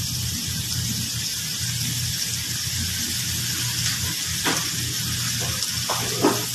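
Shrimp, garlic and green chilies frying in butter in a pan, a steady sizzle as the added butter melts. A few light clicks of the metal spatula against the pan in the last couple of seconds.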